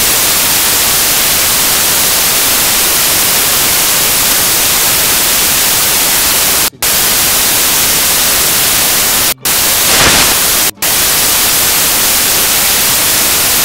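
Loud, steady static hiss with no tone or rhythm in it, cutting out to silence for a split second three times: once about seven seconds in, and twice more a few seconds later.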